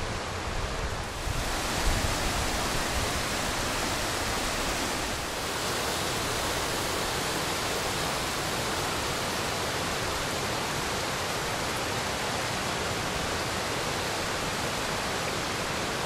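Steady rush of water from a mountain stream's waterfalls, an even noise without breaks.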